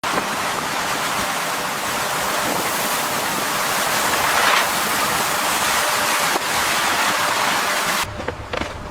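Steady rushing hiss, like running or spraying water, that cuts off abruptly about eight seconds in. A few sharp clicks follow near the end.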